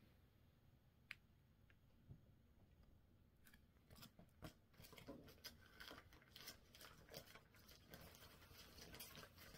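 Faint crinkling and rustling of plastic pattern sleeves and paper packets being handled, a dense run of small irregular crackles starting about three and a half seconds in after a near-silent stretch with a couple of clicks.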